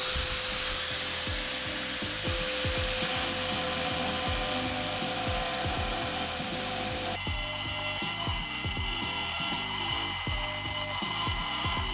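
Angle grinder cutting tile with a dust extractor running, under background music with a steady beat. The sound changes abruptly about seven seconds in.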